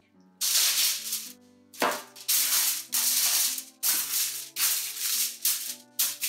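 Aluminium foil crinkling in repeated loud bursts as it is spread and pressed into a baking tray, over soft background music.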